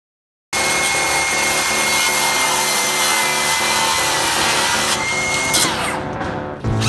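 A power saw cutting wood, a steady high whine over dense cutting noise, then the whine falls as the saw winds down about five and a half seconds in.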